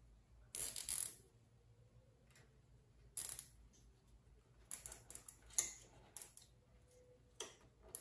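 Plastic zip tie being pulled tight around a rubber cap on a nipple, in several short ratcheting rasps.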